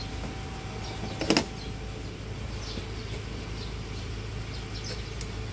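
Steady low background hum, with one sharp knock about a second in and faint high chirps.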